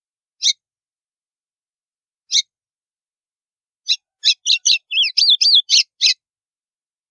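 White-throated seedeater (golinha) singing in the 'estalo' style. Two single sharp chirps come about two seconds apart, then a quick run of clicking notes with a short warble, lasting about two seconds.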